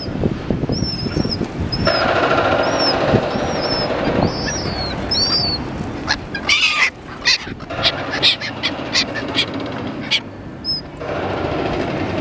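Red-billed gulls giving short, harsh squawks close by, several in quick succession from about six to nine seconds in. Throughout, a small bird gives short high chirps about every half second, over a steady city din.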